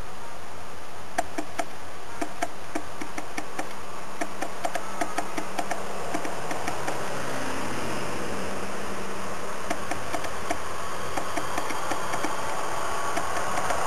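Steady engine and road noise of slow-moving trucks passing close by, broken by many small irregular clicks and knocks, a few a second.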